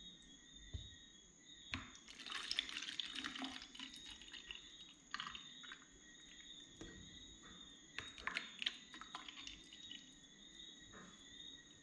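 Juice poured from a carton into plastic cups: a faint splashing trickle of liquid, with a few light clicks from handling the carton and cups.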